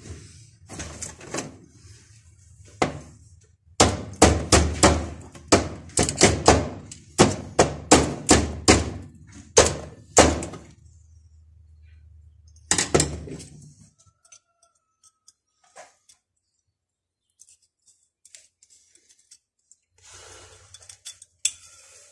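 Hammer blows on steel gear-shift lever parts: about a dozen sharp, ringing strikes at a little under two a second, then two more a few seconds later. Near the end, small metal clicks and scraping as pliers work on the lever shaft.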